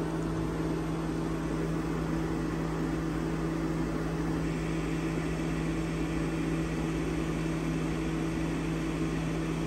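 Steady hum from a fan motor, most likely the cabin ventilation blower running with the ignition on and the engine off. It holds a low drone with a fainter tone about an octave above it, and does not change.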